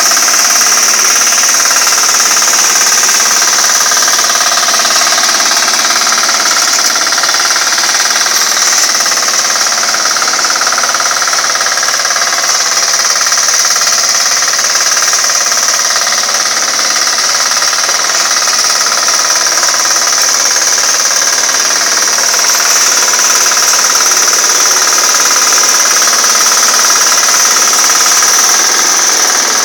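Small single-cylinder engine of a walk-behind hand tractor running steadily under load, its rapid knocking beat unbroken as the rotary tiller churns through grassy soil.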